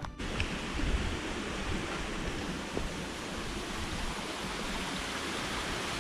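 A small rocky Highland stream rushing steadily over stones.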